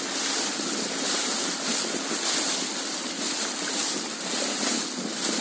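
Steady rush of wind on the microphone and water noise from a boat moving along a river.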